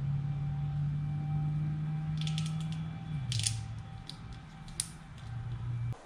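Scattered plastic clicks and rattles from a wire harness being worked into corrugated split-loom tubing by hand, over a steady low hum that drops in pitch about halfway and cuts off just before the end.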